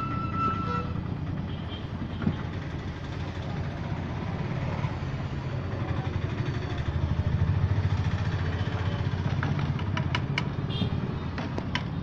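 Steady low rumble of motor-vehicle engines on the street, swelling for a couple of seconds in the middle. Near the end come several sharp clinks of metal lids and vessels.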